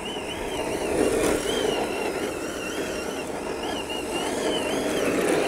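Brushed electric motor and drivetrain of an MST RMX 2.5 RC drift car whining, the pitch wavering up and down with the throttle as the car drifts, over a steady rushing noise of its tyres sliding on rough asphalt.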